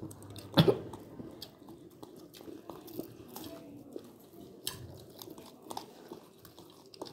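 A person chewing and biting food close to the microphone, with scattered small clicks and one sharper click about half a second in.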